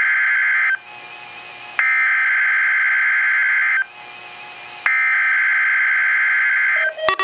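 NOAA Weather Radio SAME header data bursts from a weather radio: a harsh buzzing digital screech. The end of one burst is followed by two more, each about two seconds long with a one-second gap, opening the Required Weekly Test. Right at the end a pulsing alarm starts.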